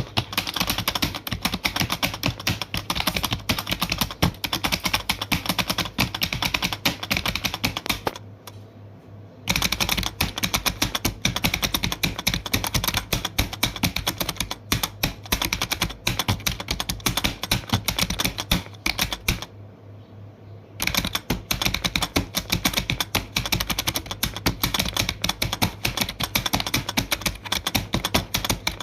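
Rapid, continuous clicking of typing on a keyboard. It breaks off for about a second roughly eight seconds in and again about twenty seconds in.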